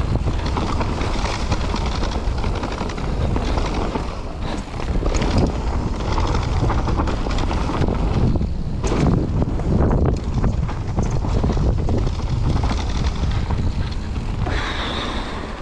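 Wind rushing over the microphone as a mountain bike rolls fast down a dirt trail, with the tyres on the ground and the bike rattling and knocking over bumps. It gets quieter near the end as the bike slows.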